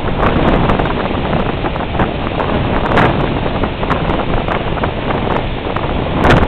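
Strong wind buffeting the microphone in gusts, over the steady wash of breaking lake surf.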